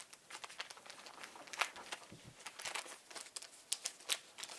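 Irregular small plastic clicks and crinkling from handling a DJI Mini 4K drone and its replacement propeller blades during a prop swap.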